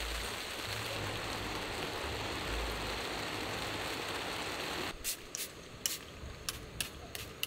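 Heavy rain pouring down, a dense steady hiss that cuts off abruptly about five seconds in. Scattered sharp ticks follow.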